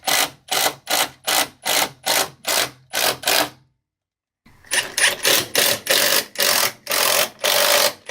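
Cordless drill/driver run in short trigger bursts, about three a second, boring and driving into wood framing lumber, then after a brief dead gap a run of longer bursts.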